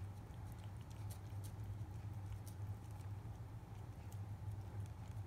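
Cat licking lickable paste from a squeeze tube of Churu treat: many soft, irregular tongue clicks and smacks, over a steady low hum.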